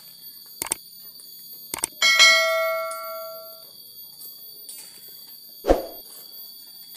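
Subscribe-button animation sound effects: two mouse clicks, then a bell chime that rings out for about a second and a half. A short thump follows near the end.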